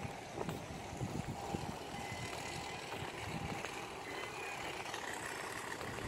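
Faint, steady hum of distant vehicle traffic.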